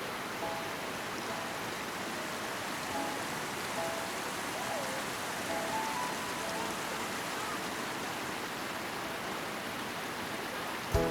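A steady rushing hiss with faint, short, high notes now and then.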